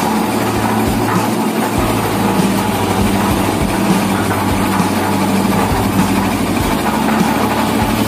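Concrete mixer machine running, a steady mechanical drone with a constant low hum.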